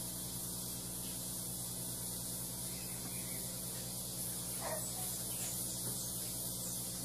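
Steady hiss with a low electrical hum from an idle amplified sound system before the backing track starts, with a faint brief chirp about two-thirds of the way through.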